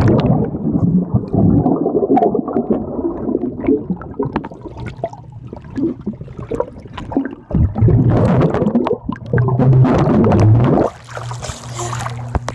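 Muffled underwater sound picked up by a phone submerged in a swimming pool: churning bubbles at first, then bubbling and gurgling as a swimmer blows air out underwater, with louder surges about 8 and 10 seconds in.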